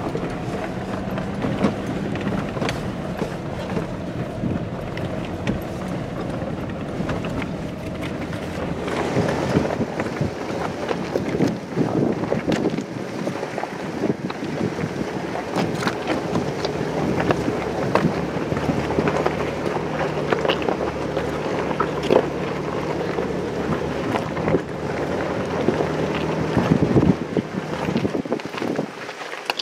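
Four-wheel-drive vehicle crawling over a rough rocky trail: the engine runs steadily at low speed while the body and cab rattle and knock over the stones, heard from inside the cab with wind noise on the microphone.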